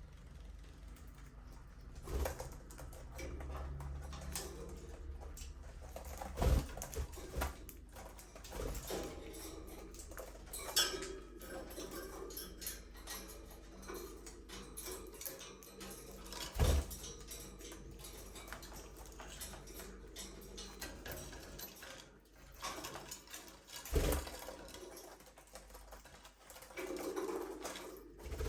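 Budgerigars chirping and chattering quietly, with a few sharp knocks and taps scattered through.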